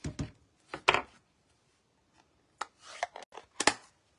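Plastic craft supplies handled on a desk: a clear acrylic stamp block lifted off card stock and a plastic ink pad picked up, giving several sharp clacks with some rubbing between, the loudest about a second in and near the end.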